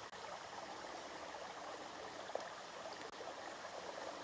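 Faint, steady rushing of running water, with one soft tick a little after two seconds in.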